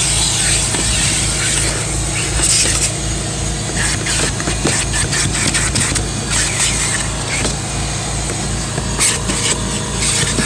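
Vacuum running through a long corrugated hose, a steady motor hum with rushing air as the crevice tool works along the car seat and floor carpet. Under it a low, evenly pulsing drone, with a few knocks of the nozzle against the trim.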